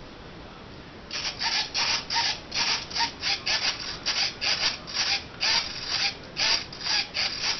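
Repeated rasping rub strokes, quick and slightly uneven at about three or four a second, starting about a second in.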